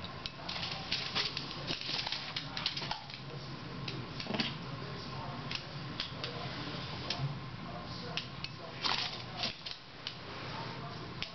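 A small Pomeranian's claws clicking and tapping on a hard wooden floor as it scampers and turns, in quick irregular clusters, over a faint steady hum.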